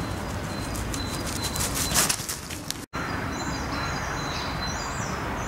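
Small dog running over dry fallen leaves, its paws rustling and crunching louder as it nears, loudest about two seconds in. After a brief cut-out, small birds call with short high chirps several times.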